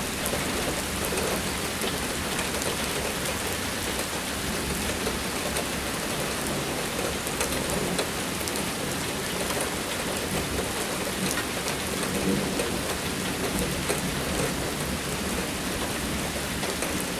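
Heavy thunderstorm downpour: rain falling hard and steadily, with low thunder rumbling underneath.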